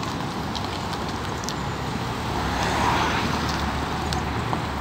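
A car passing close by on the road, its tyre and engine noise swelling to a peak about three seconds in, then easing off, over steady traffic noise.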